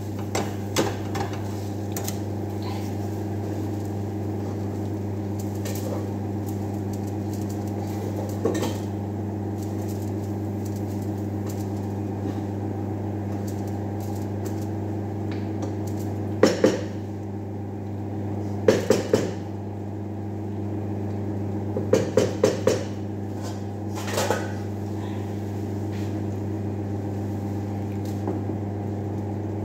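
A wooden spoon and a spatula knocking and scraping against a frying pan in a few short clusters of clinks, over a steady low machine hum.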